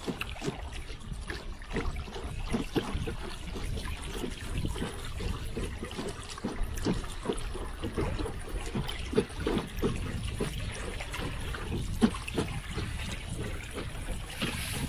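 River water lapping and trickling against the side of a wooden boat, with irregular short low slaps against the hull.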